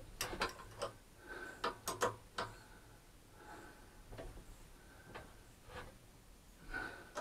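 Threaded insert being screwed by hand into plywood, driven through a drill press chuck: faint, irregular clicks and short creaks as the insert's coarse thread cuts and tears into the wood.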